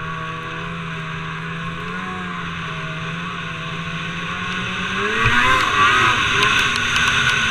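Snowmobile engine running steadily at trail speed, then revving up about five seconds in as the sled speeds up, with loud rushing noise of track and snow, a single thump and some sharp ticks.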